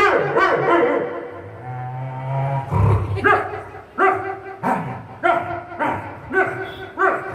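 A vocal mimic imitating a dog with his voice: a falling whine, then a run of about seven short barks.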